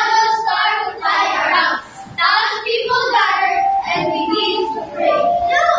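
A group of young children's voices singing together in unison, with a brief pause about two seconds in and a long held note near the end.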